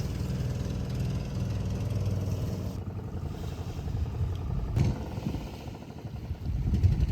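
Small motorcycle engine running steadily at low revs, with a couple of brief louder surges.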